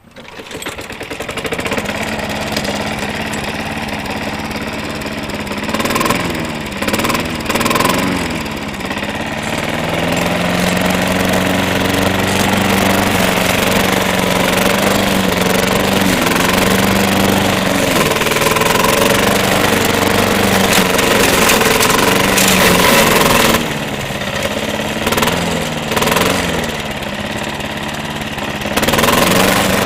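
Walk-behind rotary lawn mower's small petrol engine pull-started, catching at once and then running loudly. Its speed dips and recovers about six seconds in, and it drops again from about twenty-four seconds in before picking back up near the end.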